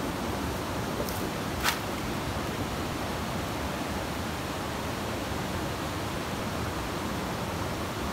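Steady rush of a mountain stream flowing over rocks, with a single brief sharp knock about a second and a half in.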